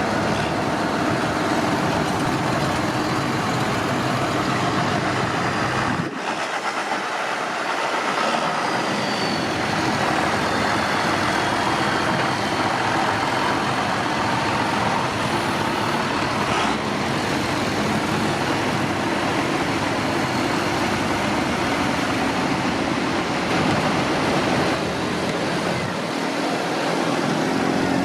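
Tractors driving past in a procession, their engines running steadily in a continuous mix. The low engine rumble drops away briefly about six seconds in.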